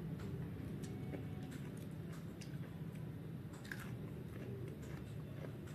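A person chewing food close to the microphone, with scattered small mouth clicks and smacks, over a steady low hum.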